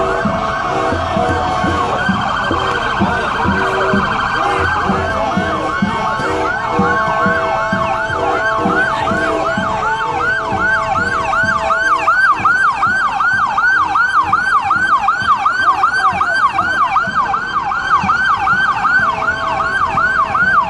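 Police car sirens sounding together, several overlapping. About halfway through, one settles into a fast yelp of about three rising-and-falling sweeps a second.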